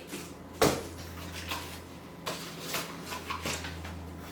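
A sharp knock about half a second in, then faint scattered clicks and rustles: flat-pack desk parts being handled as assembly begins.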